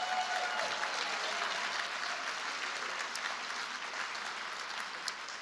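A congregation applauding, easing off slightly toward the end.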